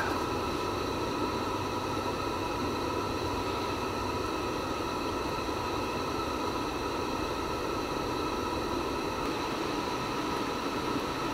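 Steady hiss of a gas burner running low, with faint steady tones in it and no change in level.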